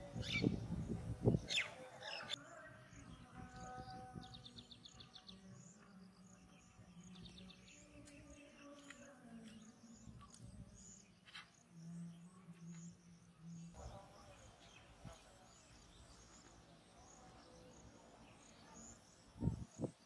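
Outdoor ambience of small birds chirping, with short runs of rapid ticking calls, after a few loud knocks and rustles in the first couple of seconds.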